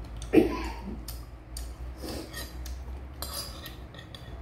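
Metal spoon clinking and scraping against a ceramic soup bowl: one sharp clink about half a second in, then lighter taps and scrapes.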